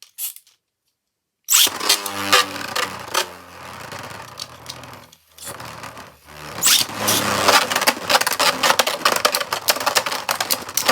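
Ultimate Valkyrie and Dynamite Belial Beyblade tops start spinning in a plastic stadium about one and a half seconds in, whirring and clashing with rapid clicking and scraping hits. The sound dips briefly around five to six seconds, then the loud, dense clashing picks up again.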